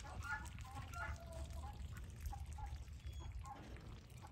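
Chinese geese and Muscovy ducks giving short, soft calls: a quick flurry of notes in the first two seconds, then a few scattered calls, over a low steady rumble.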